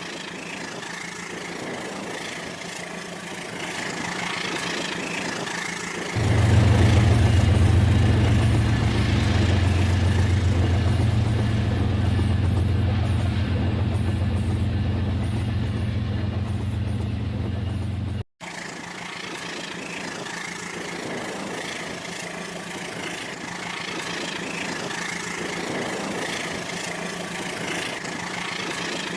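Rail King battery-powered remote-control toy train running, with a steady mechanical whir. A louder low hum starts abruptly about six seconds in and cuts off suddenly around eighteen seconds.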